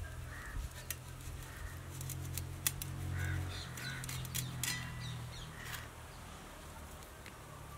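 Dried salt fish being pulled apart and cut against an upright blade by hand, giving a few sharp clicks and snips, with birds chirping in the background. A low hum swells up in the middle and fades again.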